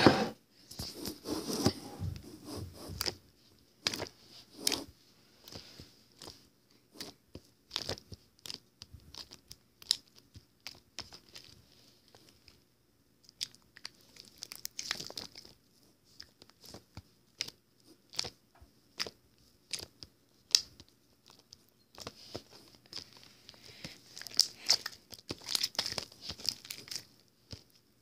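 Homemade slime being handled, squeezed and stretched, giving irregular sticky clicks and crackles.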